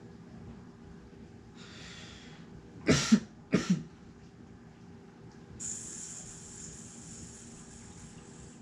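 A man coughing twice, hard, after taking a dab of vapor, with a breathy exhale just before. Later a steady airy hiss runs for about three seconds.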